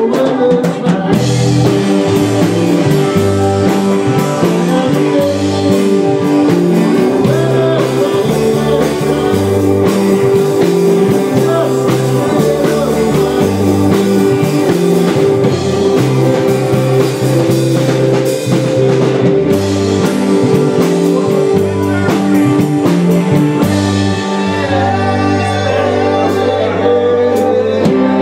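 Live band playing amplified rock with electric guitars, bass guitar and drum kit, a man singing lead into a microphone.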